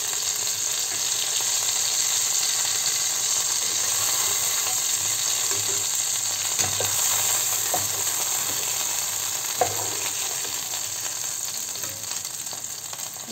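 Chicken pieces sizzling in hot olive oil in a frying pan, with a few light clicks of the metal slotted spoon against the pan as the browned pieces are lifted out.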